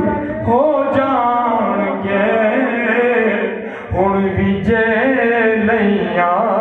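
A man singing a naat unaccompanied into a microphone, drawing out long, wavering, ornamented notes, with a short break about four seconds in.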